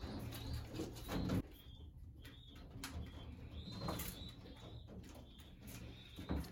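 Homing pigeons in the loft cooing softly and stirring, with a louder wing flutter about a second in.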